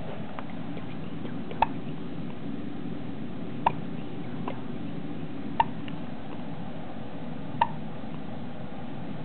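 Hiccups: four short, sharp hics at an even pace, about two seconds apart, over a steady low hum.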